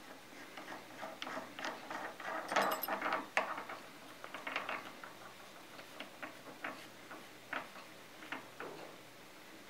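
Small metal clicks and clinks from hands working a hex key and the steel shaft and bearing housing of a Bridgeport rotary table, with a busier clatter and one sharp click about three seconds in.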